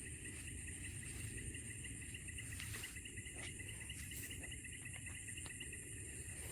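Insects trilling steadily, a fast pulsing chirr with a thinner high buzz above it, over a low rumbling background and a few faint clicks.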